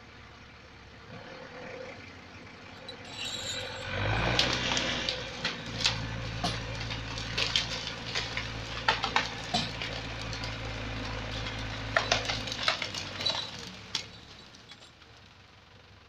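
A hung-up conifer being dragged down by a steel cable: from about four seconds in an engine runs steadily under load while branches crack and snap over and over as the crown scrapes down through the standing trees. The engine and cracking die away a couple of seconds before the end, with one last snap.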